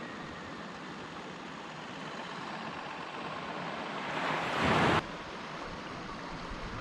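Sea water washing around a small kayak with wind on the microphone, a steady rush. About four seconds in a louder surge of water builds up, then cuts off suddenly about a second later.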